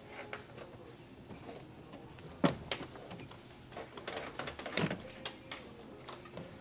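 Handling noise of speaker wire being pulled through the rubber wiring grommet between the door and the cab: scattered clicks, light rustling and rubbing, with two louder knocks about two and a half and five seconds in.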